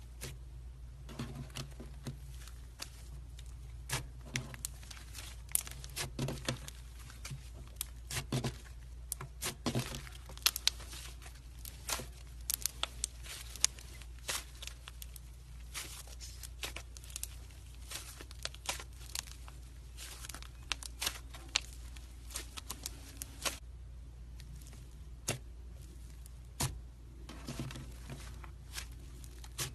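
Slime being squeezed and worked by hand, giving irregular sticky pops and crackles, thickest through the middle stretch and sparser near the end.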